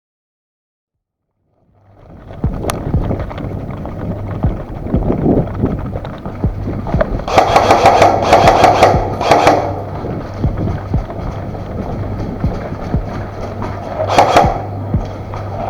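Bursts of airsoft gun fire, rapid clicking volleys: three close together about halfway through and another near the end. Between them come steady movement noise and knocks of footsteps and gear on a body-worn microphone, over a low hum.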